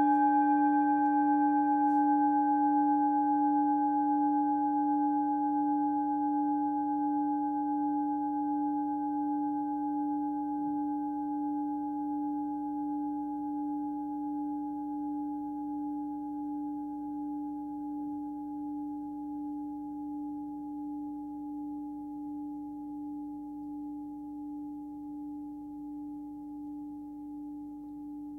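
Hand-forged Tibetan singing bowl tuned to D, about 291 Hz, ringing after a strike: one deep steady tone with fainter higher overtones, slowly fading with a gentle regular pulsing waver.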